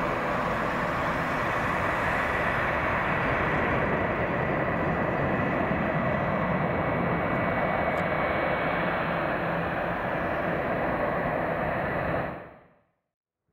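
Embraer 190 jet with its twin GE CF34 turbofans at takeoff power, climbing away just after liftoff: a steady rushing noise with a faint high whine. The sound fades out quickly near the end.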